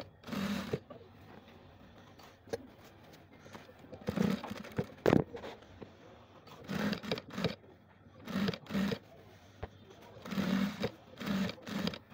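Sewing machine stitching in short stop-start runs of about half a second each, about eight in all, as fabric binding is sewn around a neckline. A single sharp click comes about five seconds in.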